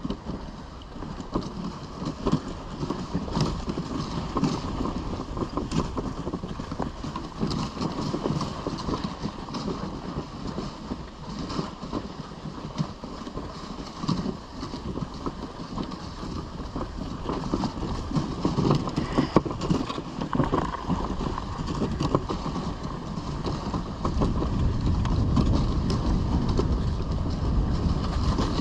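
Risdon Euro Spring dog sled running over packed snow: a steady scraping hiss from the runners with many small knocks and rattles from the sled and the dogs' feet. It gets louder and deeper in the last few seconds.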